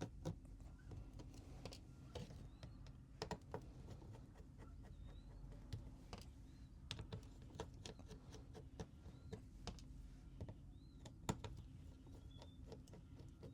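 Faint, irregular clicks and taps, with a few short high chirps about three seconds in and again near the end.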